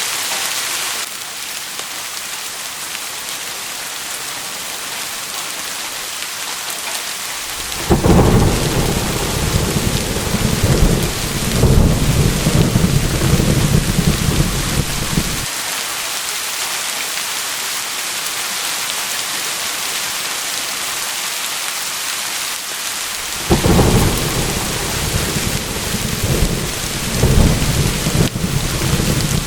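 Steady rain falling, with two long rolls of thunder. The first starts suddenly about eight seconds in and rumbles for about seven seconds; the second comes near the end.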